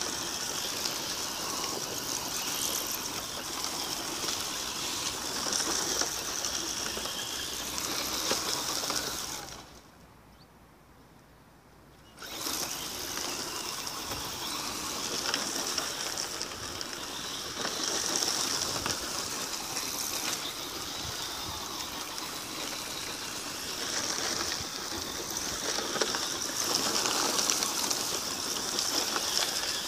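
1/9-scale RC rally car with a 3300 kV brushless motor running at speed on loose dirt: a high motor whine mixed with tyres spraying grit, swelling and fading as the car accelerates, slides and passes. The sound drops away for about two seconds near the middle, then picks up again.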